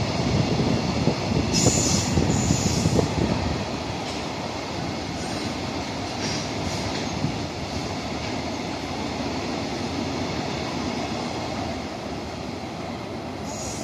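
Container wagons of an EF210-hauled freight train rolling past, a dense rumble of steel wheels on rail. It is loudest for the first few seconds, then settles into a steadier, quieter roll as the long train keeps running by.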